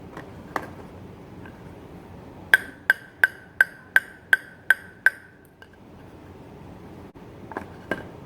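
Table tennis ball bouncing on a racket, eight even bounces about three a second, each a sharp tick with a short ringing ping. A single bounce comes before them and two more follow near the end.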